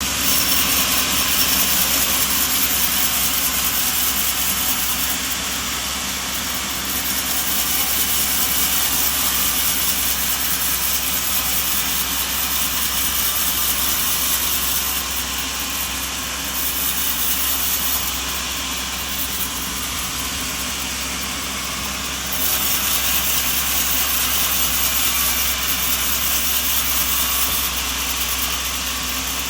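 Sawmill machinery running steadily: a dense, hissing machine noise over a low hum, stepping louder and softer every few seconds.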